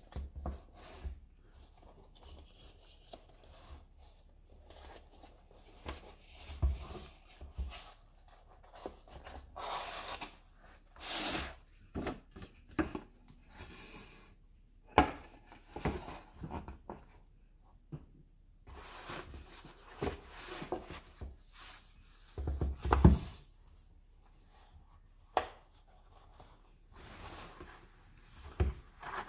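Cardboard tablet packaging being handled on a wooden table: irregular rustling and scraping of cardboard, with a few sharp knocks as the boxes are set down.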